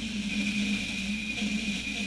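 N-scale model locomotive shoving a cut of tank cars slowly along the track: a steady low hum with a thin high whine above it.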